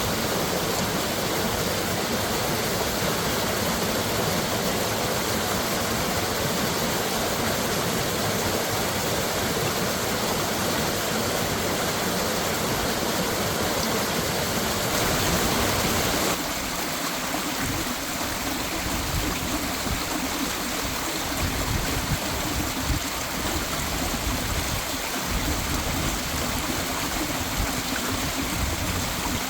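Mountain valley stream rushing in a steady wash of water noise. The sound shifts and drops slightly in level a little past halfway through.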